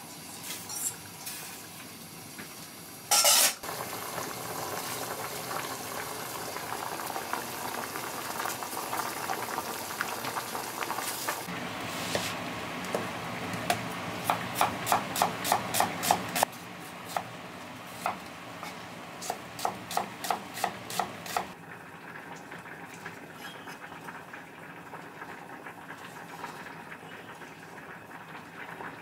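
Kitchen knife chopping an onion on a wooden cutting board: a quick run of about a dozen strokes, then slower single cuts. Under it runs the steady bubbling of a pot simmering on a gas stove, and there is a short loud burst of noise about three seconds in.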